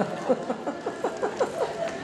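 Laughter: a quick run of short 'ha' pulses, several a second, after a joke.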